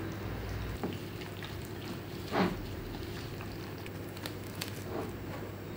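Quiet kitchen handling sounds: gloved hands working marinated beef in a bowl, then plastic cling film pulled from its roll and stretched over the bowl, with faint crinkling ticks and one brief swish about two seconds in.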